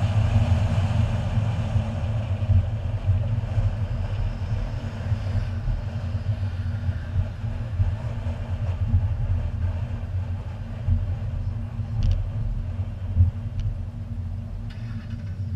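Car engine and tyre noise, a steady low rumble that eases down in loudness as the car slows from its autocross run to a crawl.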